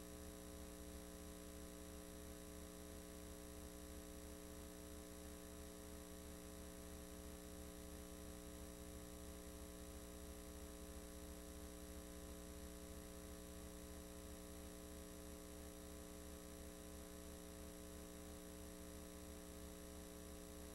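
Low, steady electrical hum with faint hiss and no other sound. It is mains hum on the soundtrack of a silent home-movie film transfer, not anything in the filmed scene.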